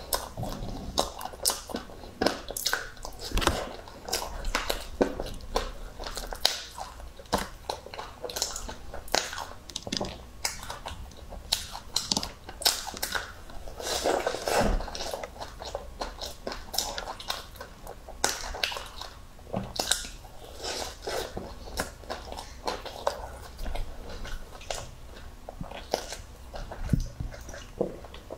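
Close-up mouth sounds of a person biting and chewing a flatbread topped with shredded meat floss and melted cheese: a steady run of crunches and wet clicks, with a bigger bite about halfway through.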